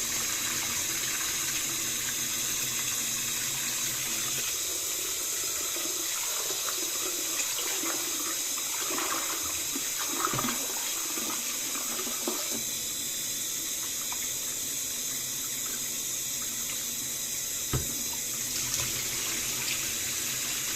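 Kitchen tap running steadily while rice is washed in the water, with a few short knocks of the pot or bowl, one about halfway through and one near the end.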